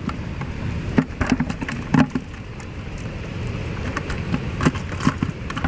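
Wind buffeting the microphone, with scattered wet slaps and clicks as small fish are picked up and dropped onto wet concrete during sorting.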